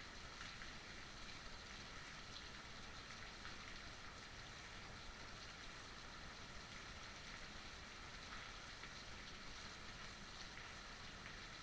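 Steady heavy rainfall, an even hiss of many raindrops with faint scattered patters on a surface.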